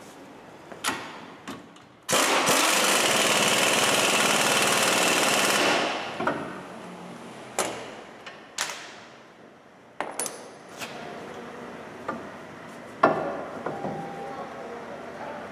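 A hose-fed pneumatic air tool runs in one loud, even burst of about four seconds, starting and stopping abruptly. Around it come scattered metallic knocks and clinks of brake and hub parts being handled and fitted.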